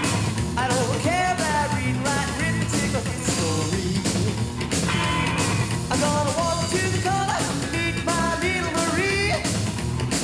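Rockabilly song playing: a band with electric guitar, bass and drums keeping a steady beat, with a male voice singing over it.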